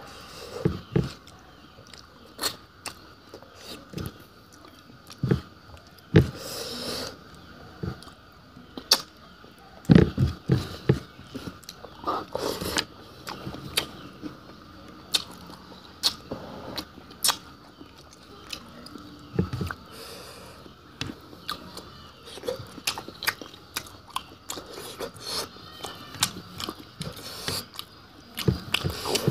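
A person chewing and eating fish and bamboo shoots, with irregular, scattered mouth smacks and clicks.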